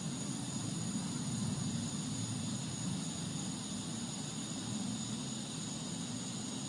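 A steady, low rumbling drone that holds unchanged, with a faint steady high whine above it: one of the unexplained 'strange sounds' heard in the sky.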